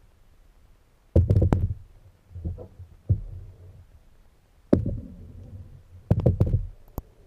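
Irregular muffled thumps and knocks from kayaks and paddles being handled and bumped during a rescue in the water, coming in clusters about a second or two apart.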